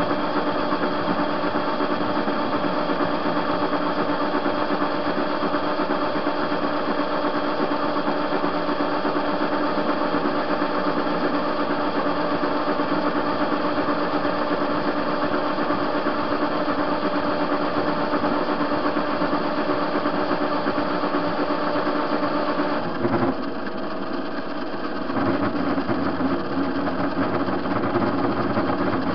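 TV-16 metal lathe running while turning down a hinge pin: a steady hum of motor and gearing with several constant tones. A little over twenty seconds in, the sound drops for about two seconds, then runs on with a lower hum.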